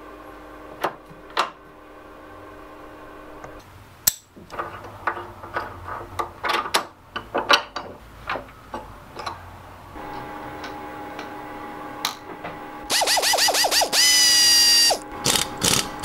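Metal clicks, clinks and knocks of lathe tooling being handled as a ring mandrel is set in a collet chuck and a ring is clamped onto it, over a low steady hum. Near the end comes a loud, rapid ratcheting burst that runs into a whine falling slightly in pitch.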